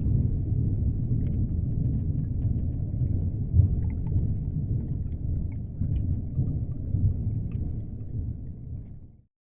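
Deep underwater ambience: a steady low rumble with faint scattered clicks and crackles, fading out near the end.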